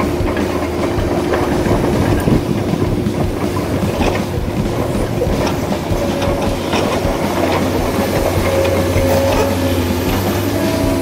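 Remote-control tracked excavator crawling along, a fast clatter of its track links over a steady mechanical drone.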